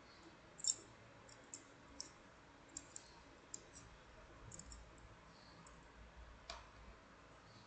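Light metal clicks and clinks of a triangular loop and pretzel wire puzzle being handled, its wire pieces tapping against each other: about a dozen sharp, irregular ticks, the loudest about a second in.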